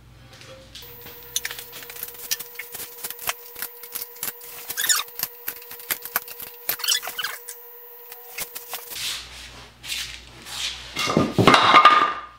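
Metal clinks and taps of a wrench working the leveling screw at a surface grinder's foot, many short sharp strokes over several seconds. Near the end, a louder scuffle of someone getting up off the floor.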